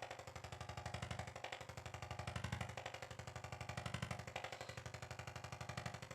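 Handheld electric percussion massager running against the body, a rapid even pulsing over a low motor hum that swells and eases as it is pressed into the muscles.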